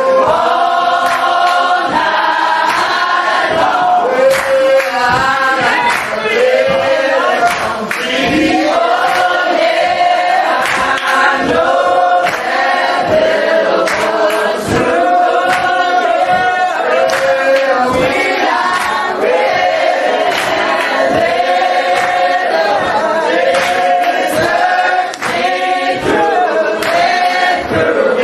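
Church congregation singing together, with a steady beat of sharp strokes about twice a second under the voices.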